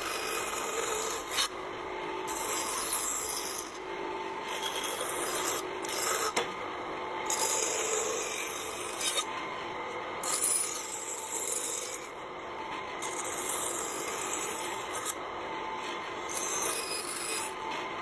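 Wood being worked by hand with an abrasive tool such as a rasp, file or sandpaper. It makes a scratchy rubbing sound in repeated back-and-forth strokes, each about a second long.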